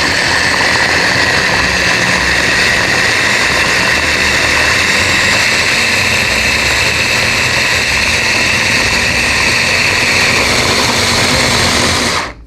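Electric blender running steadily at full speed, grinding chopped onion into a pulp; it starts abruptly and cuts off after about twelve seconds.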